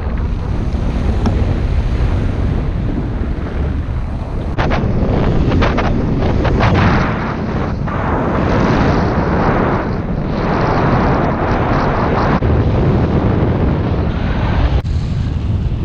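Airflow buffeting the camera microphone of a paraglider in flight: a loud, uneven rush of wind noise that swells and eases.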